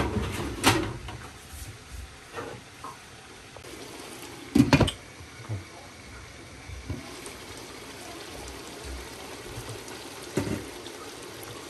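Kitchen cooking sounds: a few sharp knocks of cookware, the loudest about halfway through, over a steady watery hiss.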